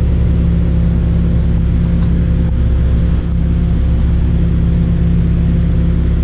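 Loud, steady low mechanical drone with a deep hum that holds one pitch throughout, from machinery running in a dyno cell.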